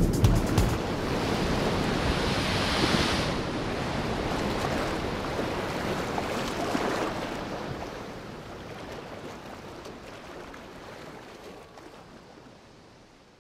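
Ocean surf rushing and washing as waves break, a steady noise that slowly fades out to silence.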